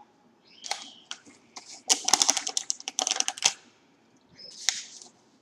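Pringles chips rattling and clattering in their can as it is tipped and shaken: a dense run of quick clicks lasting about a second and a half, with a few single knocks before and after.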